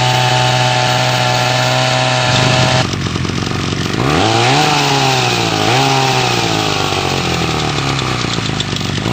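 Vintage Disston DA-211 chainsaw's two-stroke engine running just after starting. It runs at a steady speed for the first couple of seconds and its note breaks up for about a second. It is then revved up twice, around four and six seconds in, and slowly falls back toward idle.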